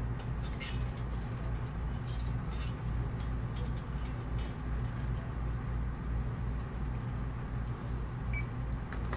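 Police dispatch ambience between radio transmissions: a steady low rumble and hiss, with a few faint clicks and one short high beep near the end.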